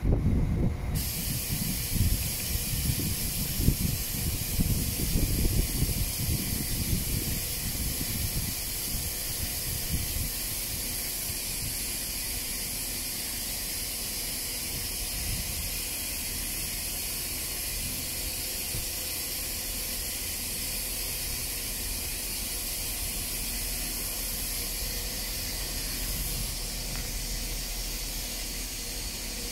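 Wind buffeting the microphone in gusts, easing after about ten seconds into a steady hiss.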